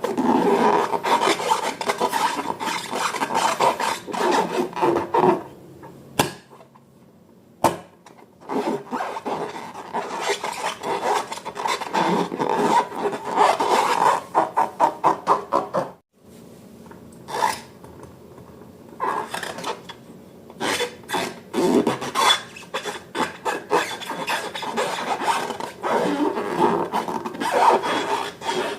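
Slime being squished and stirred by hand: a dense run of sticky rubbing and crackling noises, with a quieter pause about six seconds in and a sudden break about halfway through.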